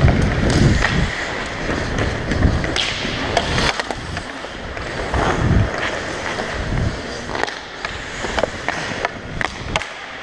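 Ice hockey skates gliding and scraping over rink ice, with scattered sharp clicks of sticks and puck on the ice.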